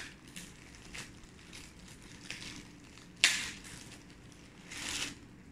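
Thin clear plastic bag crinkling and rustling as it is pulled open by hand, in scattered bursts, with a sharp crackle about three seconds in and another swell of crinkling near the end.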